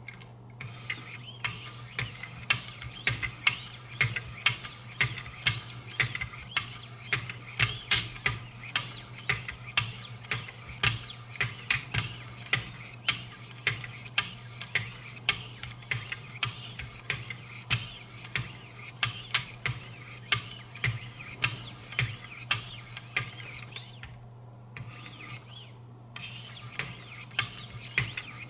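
1,000-grit diamond stones of a Wicked Edge guided knife sharpener scraping along a knife edge in quick repeated strokes, about two a second, with a short pause near the end.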